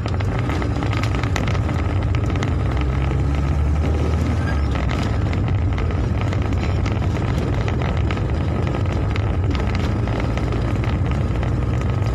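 Steady low rumble of a car's engine and tyres on a wet road, heard from inside the cabin, with scattered ticks of raindrops hitting the glass.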